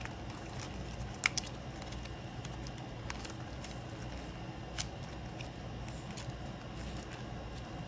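Paper bills and envelopes being handled: a few sharp clicks and light rustles, the loudest a little after a second in, over a steady low hum.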